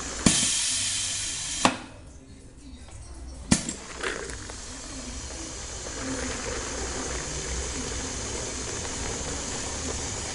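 Filling machine firing test shots while being primed with liquid soap. Its valve clicks three times: just after the start, a second and a half later, and about three and a half seconds in. A loud hiss follows the first click, then the product pours steadily from the nozzle into a plastic tub, not yet a full, even flow.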